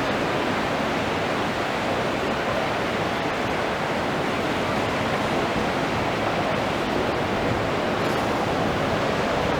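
Steady rushing noise of water and wind, even throughout with no distinct events.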